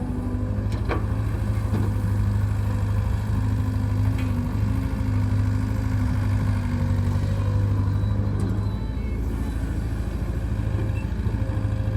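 Heavy diesel machinery engine running steadily, with a low steady hum and a few light clicks or knocks.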